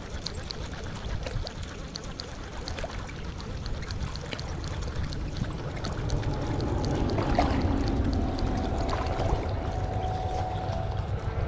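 Baitcasting reel being cranked to bring in line, ticking about two to three times a second over a steady low rumble of wind and water. A faint steady hum joins in past the middle.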